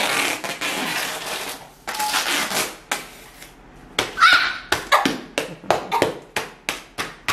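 Silver duct tape being pulled off the roll: a long rasping rip, a shorter one about two seconds in, then a run of short, sharp rips about three a second in the second half.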